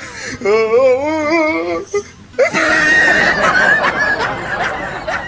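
Women laughing: one long wavering laugh, then after a short pause, louder high-pitched laughter from several voices together.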